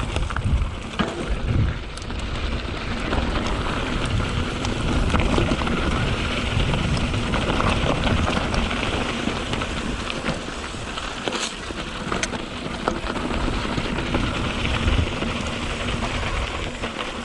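Canyon Spectral 7 mountain bike riding over a dirt trail: a steady rush of tyre and wind noise on the microphone, with many scattered clicks and rattles from stones and the bike.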